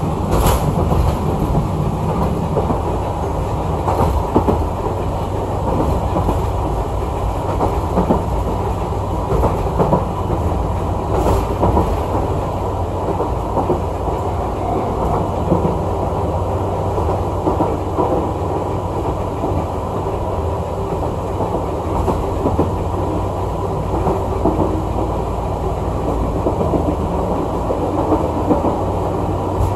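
Chikuho Electric Railway 3000 series electric car running along the line, heard from on board: a steady rumble of wheels on rails, with now and then a sharp click as the wheels pass over rail joints.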